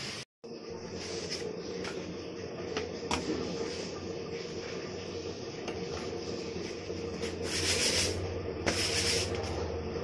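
Rustling and handling noises over a steady hum, with a few light clicks and two short hissing bursts near the end.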